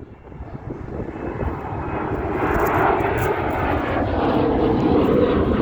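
Airliner taking off, its engine noise a broad rumble growing steadily louder.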